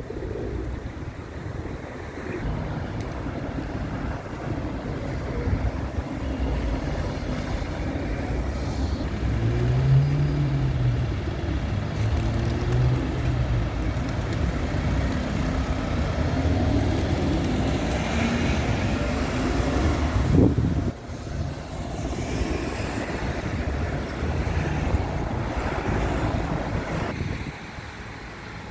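Pigeons cooing in low, rolling phrases, a few times around the middle, over a steady low rumble and hiss of background noise.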